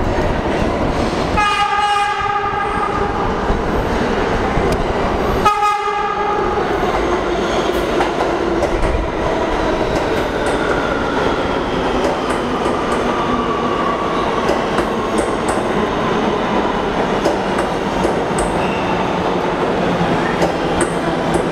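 A Kawasaki R211A subway train entering the station, sounding its horn twice, about a second and then a shorter blast a few seconds later. It then rolls along the platform with a steady rumble and a whine that falls in pitch as it slows.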